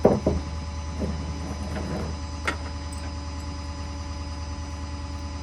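Steady low mechanical hum with a few thin steady tones, with a short knock right at the start and a sharp click about two and a half seconds in.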